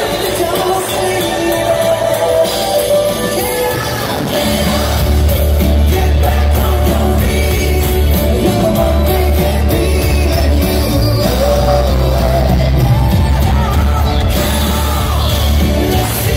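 Live rock band playing, with lead vocals sung over acoustic guitar, electric guitar and drums. A heavy low bass comes in about four seconds in and stays under the song.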